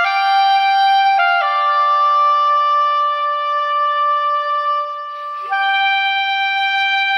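Soprano saxophone playing a slow solo melody in a few long held notes, with a short breath about five seconds in.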